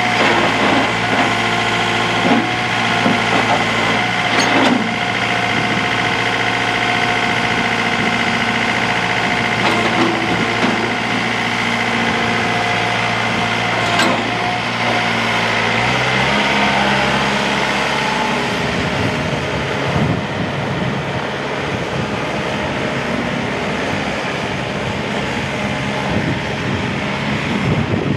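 2005 John Deere 4720's turbocharged four-cylinder diesel running as the tractor drives on gravel and works its front loader, with a steady high whine over the engine and a few knocks. About two-thirds of the way through the engine note shifts and the sound turns rougher and noisier.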